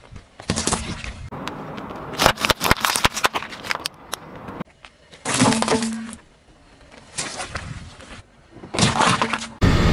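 Car tyre rolling over and crushing objects such as an orange and plastic toy-egg capsules, heard as several short separate bursts of cracking and crunching. A run of sharp cracks fills the first few seconds.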